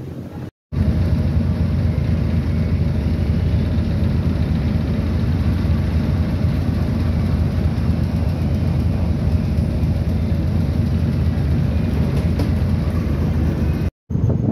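A large ship's engines running underway: a loud, steady low rumble with the hiss of the churning wake over it. It starts abruptly about a second in and cuts off near the end.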